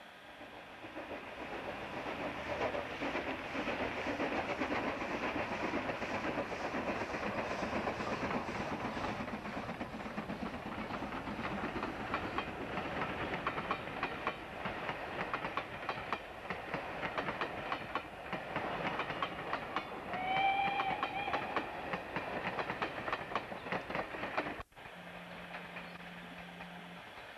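Steam-hauled passenger train passing close by, the locomotive working and the carriage wheels clicking rapidly over the rail joints as the coaches roll past. A short steam whistle blast sounds about two-thirds of the way through. Near the end the sound drops away to a quieter steady low hum.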